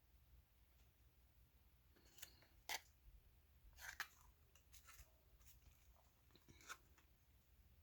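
Faint crinkles and clicks in four short clusters, as of plastic packaging and containers being handled.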